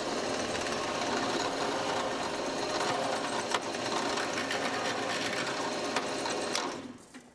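Drill press running with a twist bit boring a clearance hole through a wooden block, a steady motor and cutting noise that stops near the end.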